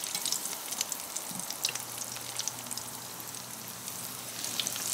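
Parmesan-crusted chicken breasts frying in hot olive oil: a steady sizzle with fine crackling, which grows louder near the end as a second breast is lowered into the oil.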